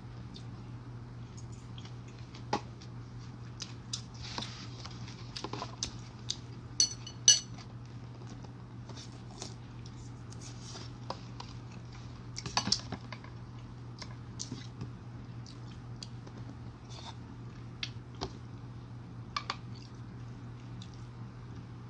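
Metal spoon and chopsticks clinking and scraping against a ceramic soup bowl while eating, in scattered short clicks over a steady low hum. The loudest are a pair of sharp clinks about seven seconds in and a cluster of them near thirteen seconds.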